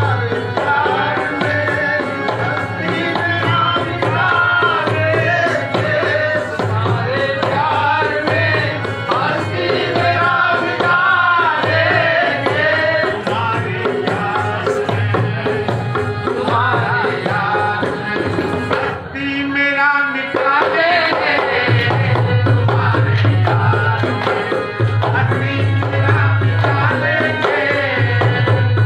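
Qawwali: a man singing devotional verses to harmonium accompaniment, with a steady percussion rhythm underneath.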